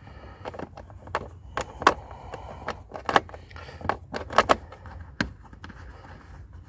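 Irregular sharp metallic clicks and clinks of a small hand tool working the screws that hold the blower motor in the car's heater box.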